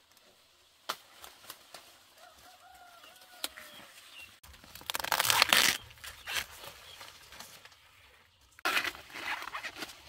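Dry leaves rustling and tearing in two loud bursts, about five seconds in and again near the end, with a few sharp snaps earlier. A chicken gives a brief call about three seconds in.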